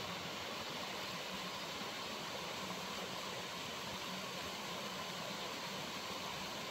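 Small waterfall on a mountain stream splashing into a rock pool: a steady, even rush of falling water.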